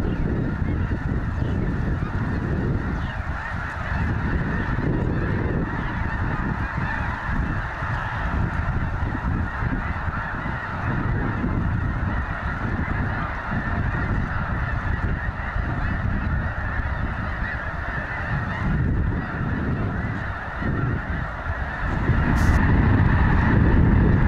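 A huge flock of snow geese calling all at once: a dense, continuous din of overlapping honks. A low rumble underneath grows louder about two seconds before the end.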